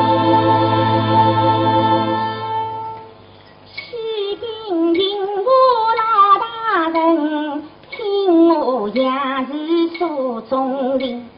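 Shanghai opera (huju) music: a held, organ-like chord for about three seconds, a short pause, then a female voice starting a winding, ornamented melody with vibrato.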